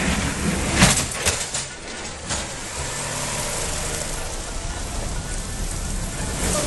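Steady vehicle running noise with a low hum, and a few sharp clacks about a second in.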